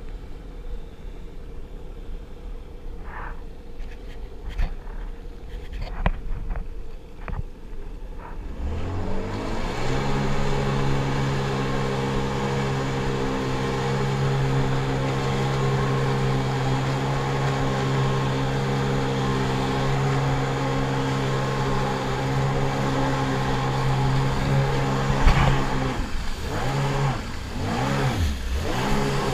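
Sea-Doo personal watercraft engine heard from on board. It is low and quiet at first, then revs up about nine seconds in and runs at a steady pitch at speed under a rushing hiss of spray and wind. Near the end the pitch dips and climbs as the throttle is eased and opened again.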